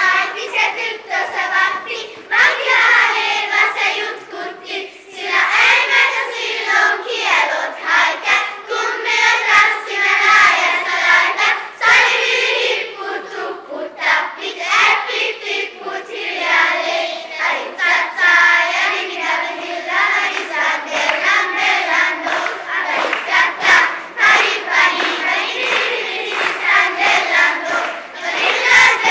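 Children's choir singing together on stage.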